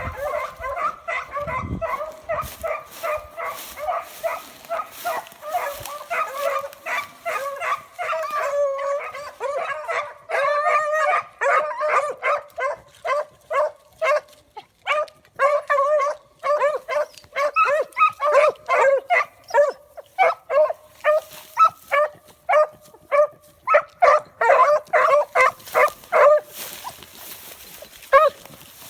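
Puppies whining and yipping: a run of high-pitched cries that, after about ten seconds, breaks into quick short yelps, two or three a second.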